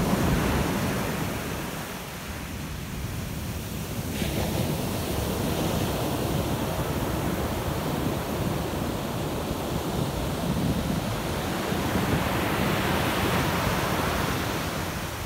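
Ocean surf breaking and washing up the beach in a continuous rush of noise. It swells about four seconds in and again near the end.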